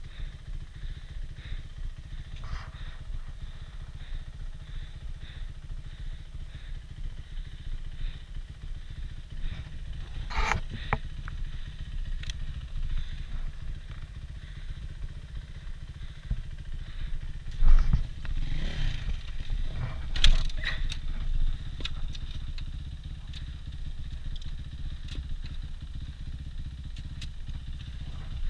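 Enduro motorcycle engine running steadily at a low idle, with a few sharp knocks and clatters on top, the loudest about two-thirds of the way through.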